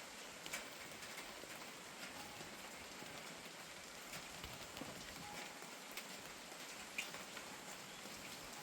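Gentle rain falling steadily as an even hiss, with scattered single drips ticking sharply over it, the loudest about seven seconds in.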